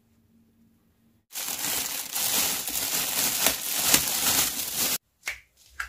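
Thin plastic bag crinkling and rustling as it is handled and wrapped over a basket, starting about a second in and cutting off suddenly near the end.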